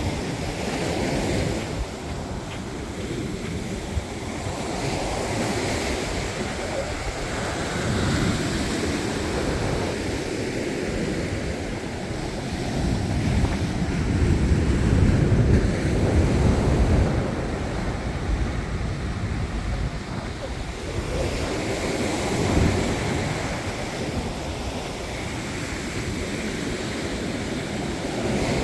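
Mediterranean surf breaking and washing up the beach, with wind buffeting the microphone. The noise swells and eases over several seconds, loudest in the middle.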